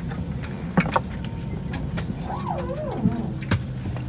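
Airliner cabin at the gate: a steady low hum with scattered sharp clicks and knocks. A brief wavering pitched sound comes about two and a half seconds in.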